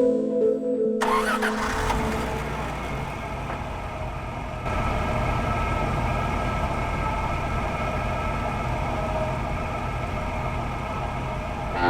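Traxxas TRX-4 RC crawler's electric motor and gear drivetrain running as it drives, a steady whine over a noisy rush, getting louder about halfway through. Music cuts off about a second in.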